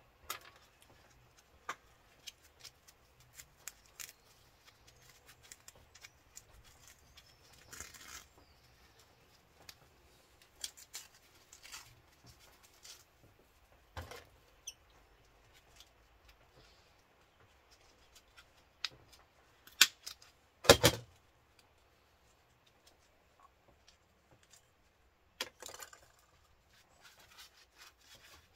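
Hand tools working small metal and plastic parts salvaged from a microwave: scattered snips, clicks and clinks of cutting pliers and loose parts, with a louder short clatter about three-quarters of the way through.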